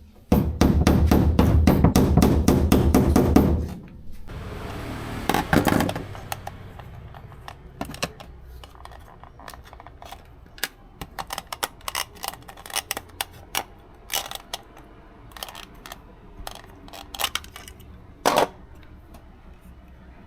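A loud, rapid rattling clatter for about three and a half seconds, then scattered light clicks and taps of small hardware and fan parts being handled.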